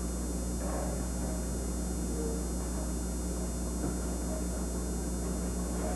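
Steady electrical mains hum in the audio line, with a thin high buzz of evenly spaced overtones above it.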